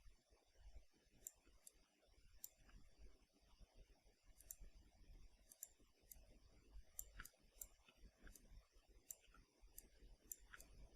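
Faint, irregular computer mouse clicks, a few dozen scattered unevenly, made while points are selected and dragged in 3D modelling software.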